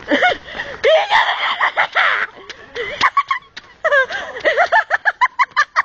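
Excited high-pitched voices shrieking and laughing, ending in a quick run of short laughing yelps.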